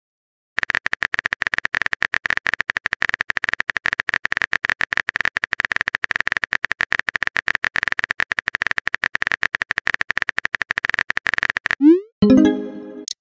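Texting-app keyboard typing clicks in a fast, even run as a message is typed. Near the end a short rising whoosh marks the message being sent, followed by a brief chiming message tone.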